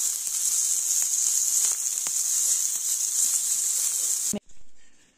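Meat sizzling on a charcoal mangal grill: a steady high hiss with a few sharp crackles of spitting fat. It cuts off abruptly about four seconds in.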